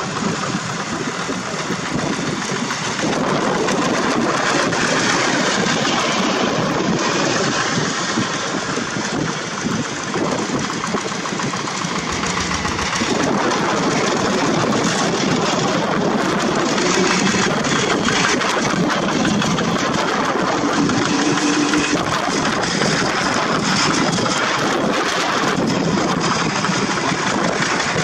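Diesel engines of several two-wheel walking tractors running steadily together, a dense unbroken engine sound with no pauses or surges.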